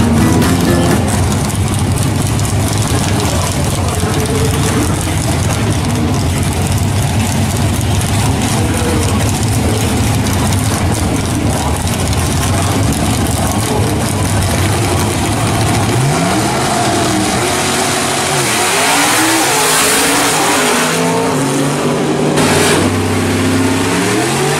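Drag-racing car engines running loud at the drag strip: a steady, heavy engine sound for about the first two-thirds, then engine revs rising and falling several times.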